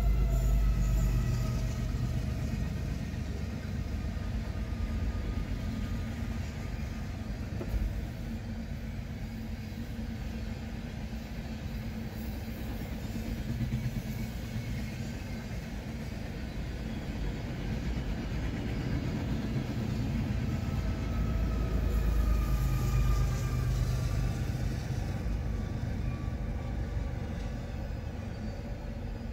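Freight train passing close by. A diesel locomotive rumbles past at the start, its horn trailing off in the first second, then the steady rumble of freight cars rolling over the rails. The rumble swells again about three-quarters of the way through.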